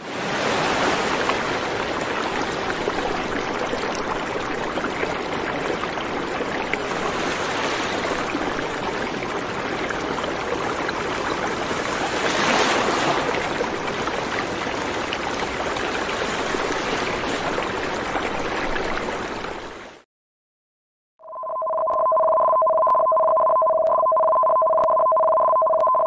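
A steady rushing noise that swells briefly about halfway through, then cuts off dead. After a second of silence, a steady two-tone alert starts, two pitches held together without a break, sounding for a tsunami warning.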